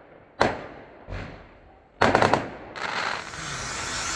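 Fireworks going off: a sharp bang, a duller thump about a second later, then a rapid string of cracks like a firecracker string, followed by a steady hiss.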